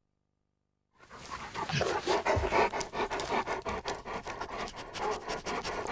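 After about a second of silence, several bloodhounds sniff and pant in quick, ragged breaths.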